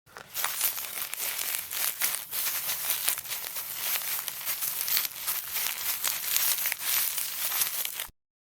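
Footsteps crunching steadily over a crackly surface, a dense run of small crinkling crunches that cuts off suddenly near the end.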